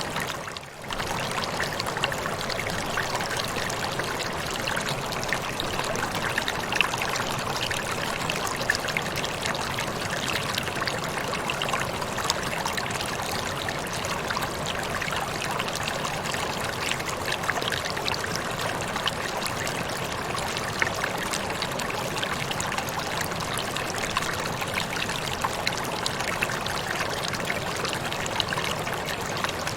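Waterfall splashing in a steady, even rush of water, with a brief dip in level just under a second in.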